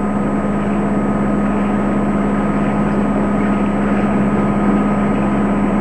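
Sailboat's inboard diesel engine running steadily, a constant unchanging drone with a low hum.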